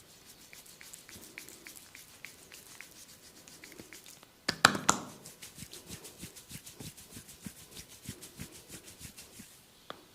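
Hands tapping and patting rhythmically on skin in a percussive massage, about three to four strokes a second. About four and a half seconds in there is a much louder burst of sharp snaps.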